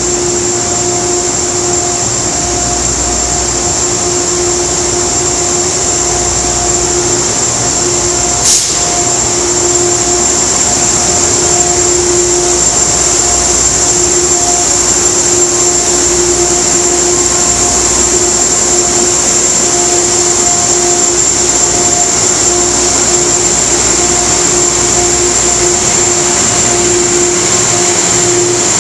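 Amtrak P32 diesel-electric locomotive and its train standing at the platform with their equipment running: a loud steady drone with a constant high whine and a lower hum that comes and goes. One sharp click about eight and a half seconds in.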